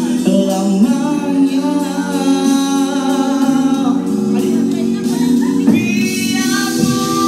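Two men singing a slow Malay-language song into microphones over backing music, holding long notes.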